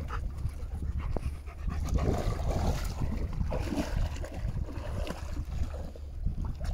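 A dog panting, with a couple of short whines.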